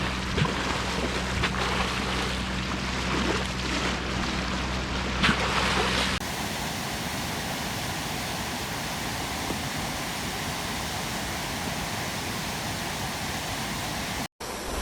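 Water recordings joined back to back. First, splashing and lapping water over a steady low engine-like hum. About six seconds in, it cuts to a steady, even rush of flowing water.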